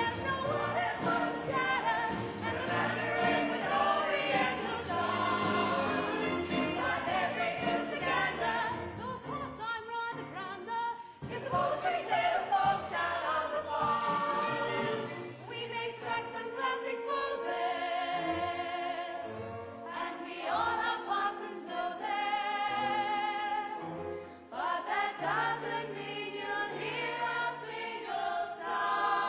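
Stage musical cast singing together as a chorus with music, the sound dropping away briefly twice.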